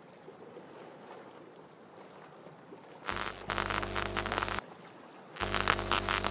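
Logo-intro sound effect: after a few seconds of faint hiss, two loud bursts of electric crackling over a low hum, each about a second and a half long, the first starting about three seconds in.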